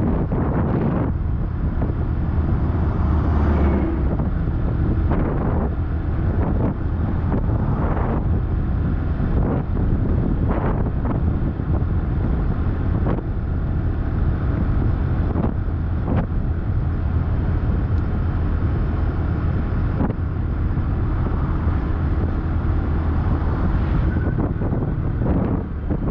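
A vehicle travelling on a rough road: a steady engine and road rumble with wind buffeting the microphone and scattered knocks from bumps.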